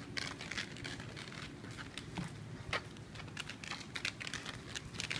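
Puppies scuffling and pawing right at the phone: a quick, irregular run of scratchy clicks and rustles.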